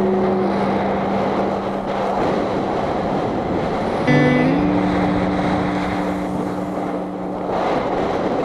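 Steady rushing wind noise on a skier's helmet camera during a fast downhill run. Quieter background music plays long held notes that change to a new chord about four seconds in.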